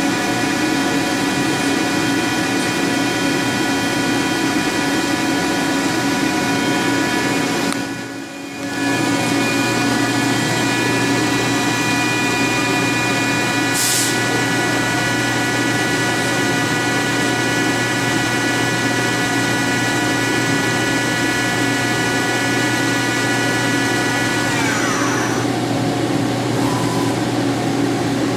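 Okuma LB15 CNC lathe running under power with a smooth, steady hum and several high whining tones. About eight seconds in the sound briefly drops away and then returns with a lower hum added. Near the end some of the whine falls in pitch as a drive winds down.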